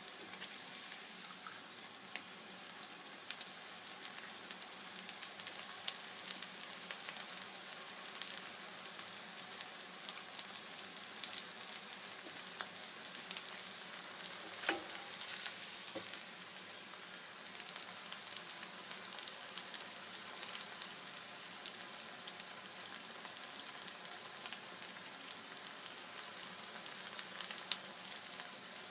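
Homemade rice-paste kurkure frying in hot oil: a steady sizzle with scattered crackles and pops.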